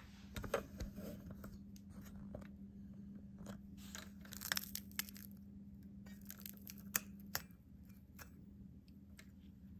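Clicks and rustles of a fluorescent lamp starter being handled and fitted into a small plastic starter socket with wires, with a sharp click about seven seconds in. A steady low hum runs underneath and cuts off just after that click.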